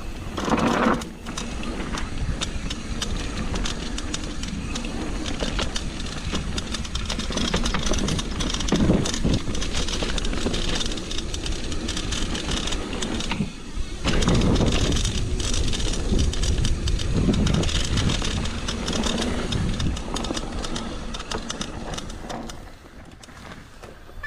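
Mountain bike descending a dirt trail: tyres on dirt and gravel, with chain and frame clattering over bumps and wind rushing over the microphone. It goes quieter for the last couple of seconds.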